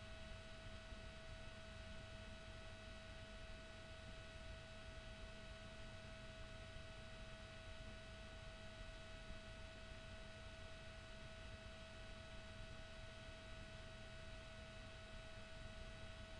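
Near silence: a faint even hiss with one steady, unchanging high-pitched tone.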